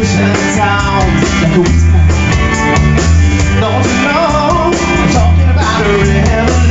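Rock band music: a melody line bending up and down over a bass line in long held notes and a steady beat, with no words sung.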